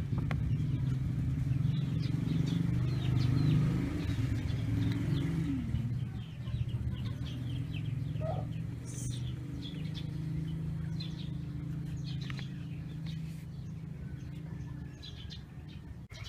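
Chickens clucking and small birds chirping in short, repeated calls over a steady low hum.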